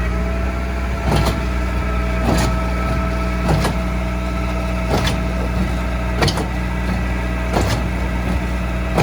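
Concrete pump running with a steady engine hum and whine, and a sharp knock about every 1.3 seconds as the pump strokes.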